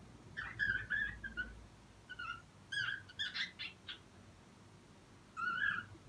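Cockatiel chirping: a run of short calls, a quick burst of notes in the middle, and one more call near the end.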